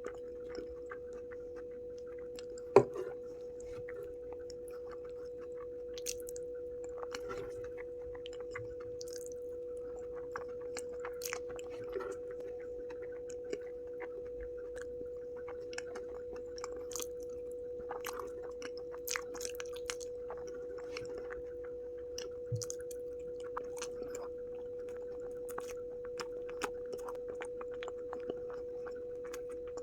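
Close-miked chewing of food, with soft wet clicks and smacks scattered irregularly and one sharper click about three seconds in. A steady faint tone hums underneath throughout.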